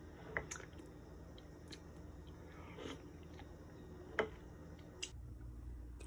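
Quiet kitchen room tone with a low steady hum and a few faint short clicks, the clearest about four seconds in.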